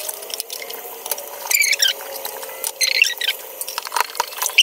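Wet plastic coffee-machine parts being hand-washed: light clicks and knocks of plastic, with bursts of high squeaking as the parts are rubbed, about one and a half seconds in, around three seconds in and again near the end.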